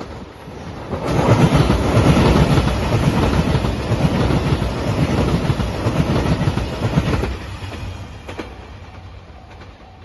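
JR Shikoku 2700 series diesel train passing close by at speed, its engine and its wheels clattering on the rails. The sound rises about a second in, stays loud for about six seconds, then fades as the train goes away.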